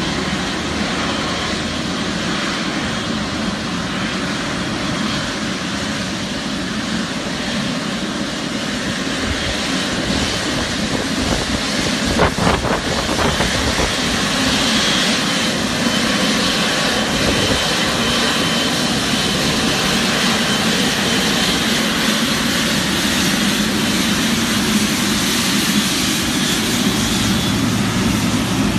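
Boeing 777's GE90 turbofan engines running at idle thrust as the airliner taxis slowly past: a steady, loud jet rush with a low hum. A faint high whine joins about halfway through, and there is a brief click about twelve seconds in.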